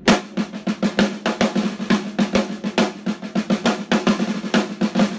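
Snare drum played with sticks at speed: a rapid two-measure break of alternating eighth-note triplets with flams and bounced strokes, dense strokes with no gap.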